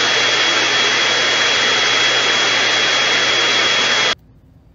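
Vacuum cleaner running steadily with a high whine, its hose nozzle sucking up clumps of shed pet fur from a tiled floor; it cuts off suddenly near the end.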